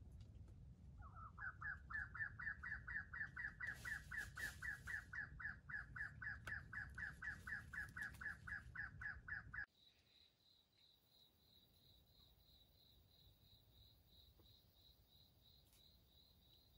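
A bird calls a fast series of short, slightly falling notes, about four or five a second, for about nine seconds, and it cuts off suddenly. After that there is only a faint, steady, pulsing insect trill.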